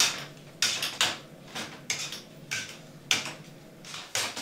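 Metal potato masher mashing boiled carrots in a stainless steel pot: a run of uneven metal clanks against the pot, about two a second.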